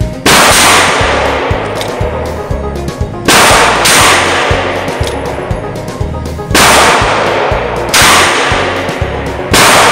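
Five 9mm shots from an Uberti 1875 Remington 'Outlaw' single-action revolver, each ringing out in an indoor range. The first three come about three seconds apart and the last two more quickly, over background music with a steady beat.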